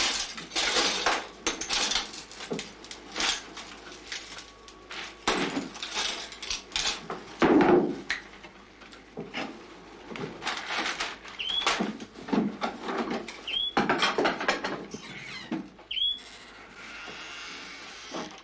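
Rummaging and clattering as a room is searched: irregular knocks, bumps and shuffling of objects and cupboard doors, with one louder thump about seven and a half seconds in and a stretch of cloth rustling near the end. A few short high chirps sound in the second half.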